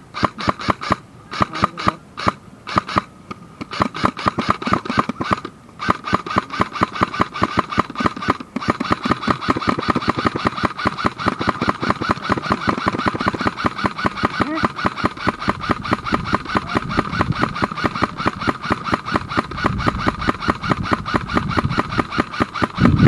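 Electric airsoft gun firing on full auto: rapid clicking shots with a whirring gearbox, in several short bursts at first, then one long near-continuous stream.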